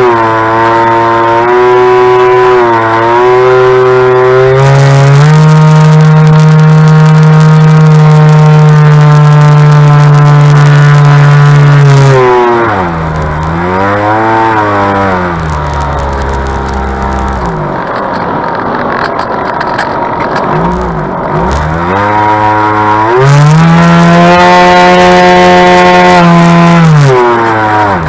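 Bixler 2 RC glider's electric motor and propeller whining, heard from a camera on board the plane. The pitch climbs and holds high, falls away about twelve seconds in as the throttle comes back, then rises and holds again before dropping near the end.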